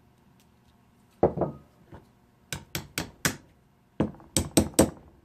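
Sharp metallic clicks and knocks from the hammer mechanism of an old pneumatic impact wrench being worked by hand. A couple of duller knocks come about a second in, then two quick runs of clicks, four and then five, with the mechanism catching as it turns.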